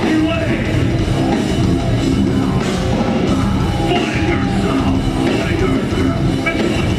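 Heavy metal band playing live: distorted electric guitars, bass guitar and a drum kit, with a vocalist singing into the mic.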